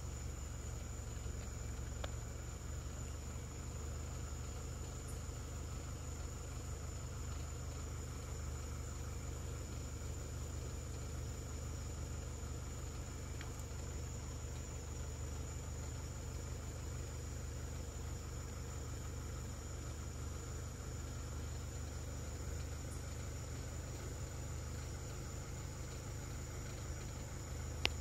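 A vehicle's engine idling steadily: an even low hum with a faint thin high tone above it, and a brief click near the end.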